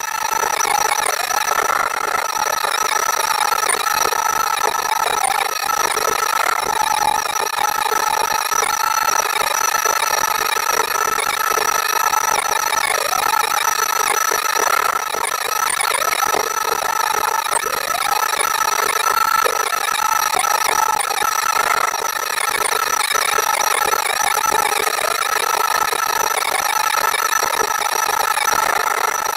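CAT 309CR excavator running a CAT HM210 mulching head, a steady high whine over the engine, with rattling as the head works.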